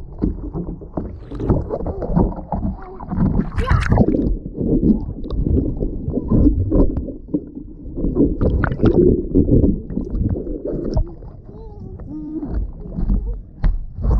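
Pool water sloshing, gurgling and splashing in irregular surges against a camera riding at the waterline of a boogie board, the microphone going under the surface at times.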